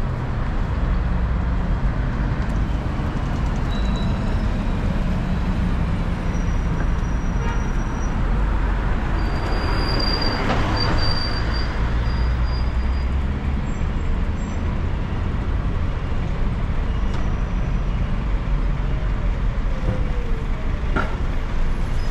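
City street traffic: a steady rumble of engines and tyres on asphalt, swelling as a white minibus passes close by about halfway through. A thin high squeal sounds for a few seconds as it passes, and there is one short click near the end.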